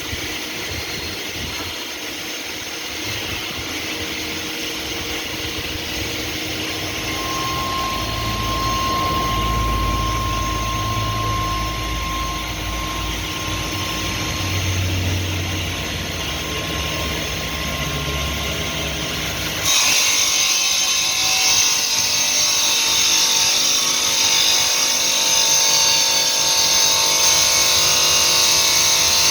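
Stone-cutting machine running steadily, turning suddenly louder and harsher about twenty seconds in.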